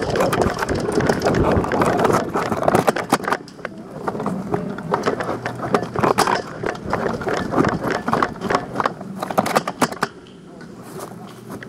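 Footsteps crunching over dry ground and brush, with clothing and gear rustling: quick and dense for the first few seconds, then slower, spaced steps, going quieter near the end.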